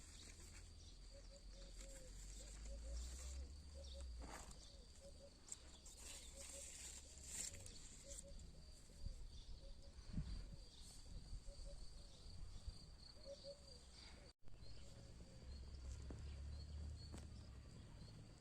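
Outdoor ambience of many short, repeated low animal calls, with faint high insect chirps over a low rumble. The sound cuts out for an instant about 14 seconds in.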